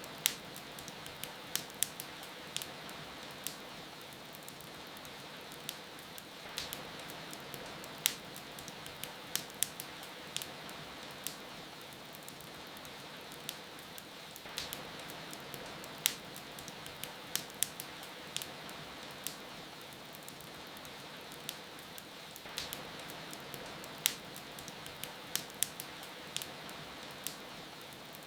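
Fireplace fire crackling, with sharp irregular pops, over a steady hiss of rain.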